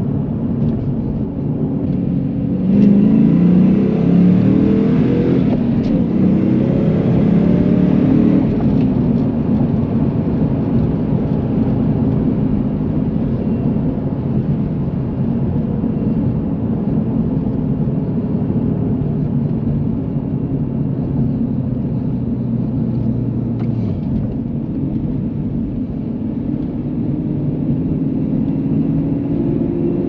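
1999 Mustang GT's 4.6-litre V8, with short-tube headers, stage 2 cams, an H-pipe, no catalytic converters and stock mufflers, heard from inside the cabin under way. About three seconds in it pulls, revs climbing for some five seconds, then settles to a steady cruise, and the revs rise gently again near the end.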